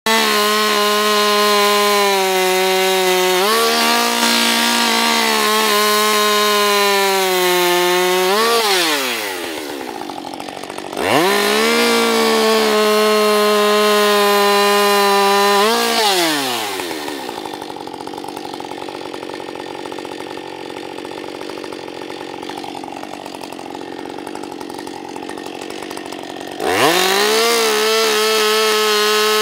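Two-stroke chainsaw at full throttle, slicing thin discs off an upright log. It drops off to idle about eight seconds in and revs back up about three seconds later. From about sixteen seconds it idles more quietly for around ten seconds, then revs up to full again near the end.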